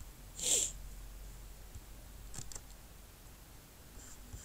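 Computer mouse clicks: a quick pair of sharp clicks about halfway through and a faint tick near the end, as the saved image is opened. A short hiss, the loudest sound, comes about half a second in.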